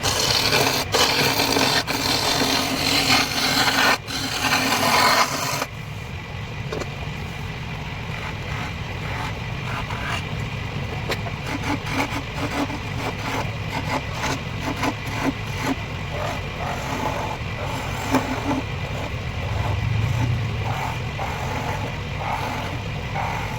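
Wood lathe running while a turning tool scrapes and cuts the spinning wooden blank. The cutting is heaviest for about the first six seconds, then gives way to lighter, intermittent scraping over the machine's steady hum.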